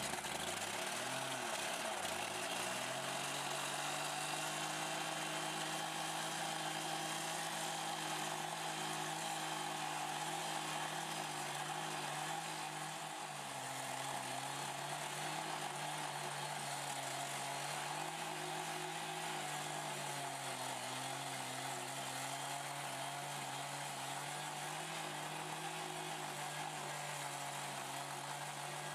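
Two-stroke petrol rail cut-off saw running at full speed, its abrasive disc grinding through a steel rail with a steady high hiss. The engine note sags about a second in, picks back up and then holds steady, dipping slightly now and then under the load of the cut.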